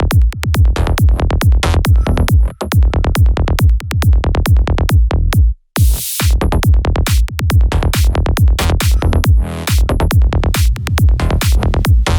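Fast electronic dance music in the psychedelic trance style, with a driving beat and rapid rolling bass pulses. About halfway through it cuts out for a split second, then comes back in with a burst of hiss.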